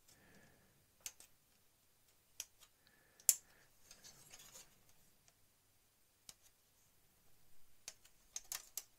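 Sprue cutters snipping plastic model-kit parts off the sprue: scattered sharp clicks, the loudest about three seconds in and a quick few near the end, with faint rustling of the plastic sprue being handled between them.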